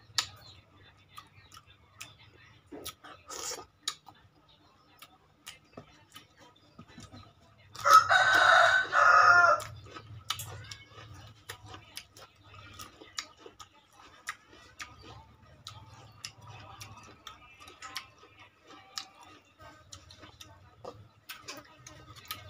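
A rooster crows once, loudly, about eight seconds in, a single call lasting under two seconds.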